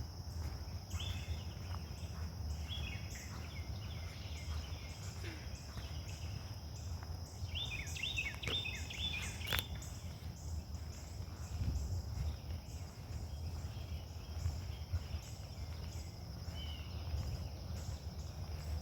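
Insects droning: a steady high buzz with a faster pulsing trill above it, over a low rumble. A few short chirping calls come through, with a quick run of them about eight seconds in.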